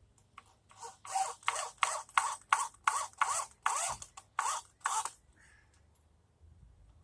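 Hand saw cutting wood: about a dozen quick, evenly paced scraping strokes, roughly three a second, stopping after about four seconds.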